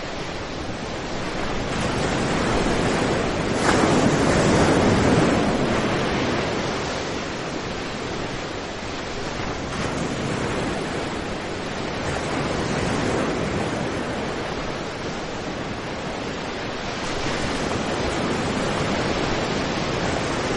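Sea surf breaking on a sandy beach: a steady rush of waves crashing and washing up the sand. It swells loudest about four seconds in and again near the end.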